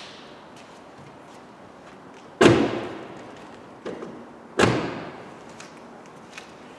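Front door of a 2009 Seat Leon slammed shut twice, about two seconds apart, each a solid thud with a short echo, with a lighter click between them.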